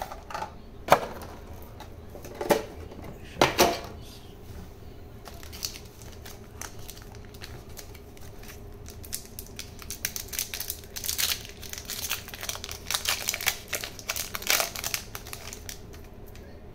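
A Pokémon booster pack's foil wrapper crinkling and tearing as it is opened by hand, a dense crackly rustle through the second half. A few sharp knocks in the first few seconds come from packs being handled.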